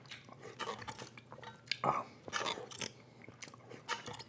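A person chewing a mouthful of canned green beans: irregular short chewing and biting sounds with small mouth clicks.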